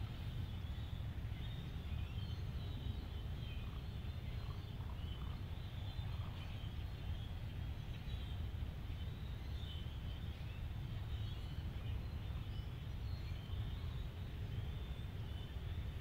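Many distant birds calling over and over from a large flock, above a steady low rumble that is the loudest sound.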